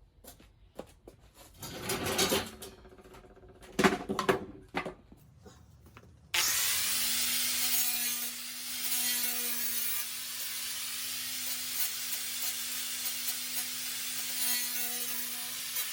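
Small IGBT inverter stick welder: a few knocks and scrapes, then about six seconds in the arc strikes and burns with a steady crackling hiss over a steady low tone.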